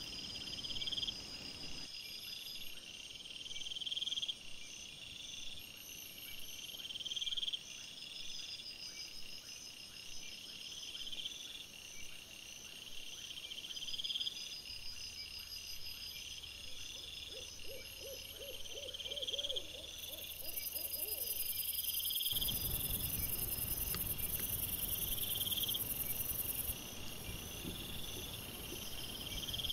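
Night-time crickets chirping in a steady chorus, with one rising chirp repeating about every two seconds over a continuous higher trill. A short, faint wavering call sounds a little past halfway. Low rustling noise comes in for the last third.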